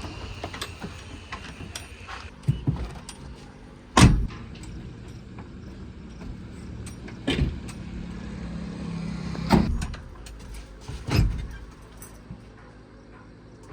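Heavy machinery engine dropping to a low hum at the start, with five sharp heavy knocks a couple of seconds apart, the loudest about four seconds in.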